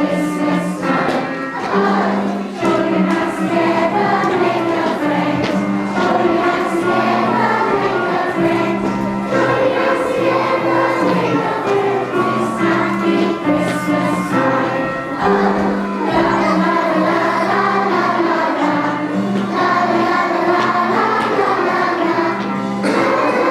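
A children's choir singing a song, with held instrumental notes underneath.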